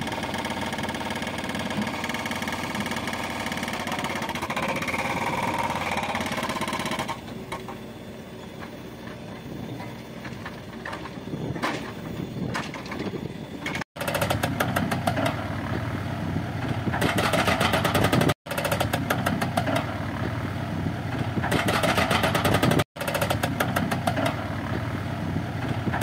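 Diesel engines of backhoe loaders running while digging, with the clatter of the machines working. The sound goes quieter about a third of the way in, then returns louder after a sudden break, and the engine rises under load twice in the last part.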